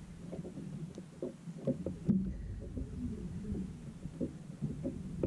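Knocks, bumps and shuffling on the deck of a small fishing boat, with a heavier thump about two seconds in.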